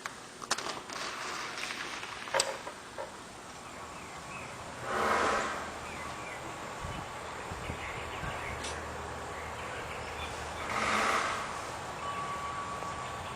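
Woodpecker drumming, heard from inside the fireplace: two rapid drum rolls about six seconds apart, each lasting about a second, with a few single sharp taps before them.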